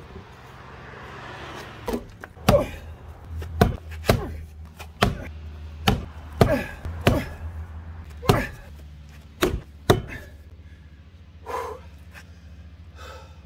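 About a dozen sharp knocks of a long-handled axe working against a sawn log round, roughly half a second to a second apart, then two softer ones near the end. Under them runs the steady low hum of the John Deere 27D excavator's diesel engine idling.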